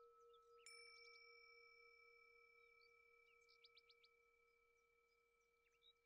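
Faint singing bowl ringing on with a steady tone; about half a second in, a higher bell-like tone is struck and rings on with it. A few short high chirps come near the middle.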